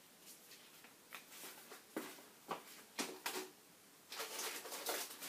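Faint scattered clicks and taps of hands handling a laptop and its LCD screen panel, about six sharp ones over the first three and a half seconds, with soft rustling near the end.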